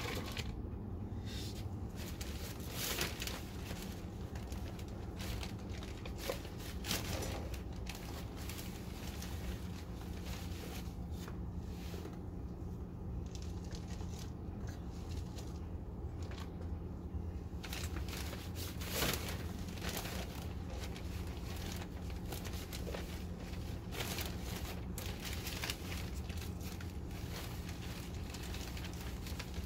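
Potting soil being scooped and poured into cut plastic bottle planters and pressed down by hand, the thin plastic crinkling and the soil rustling in irregular scrapes, over a steady low rumble.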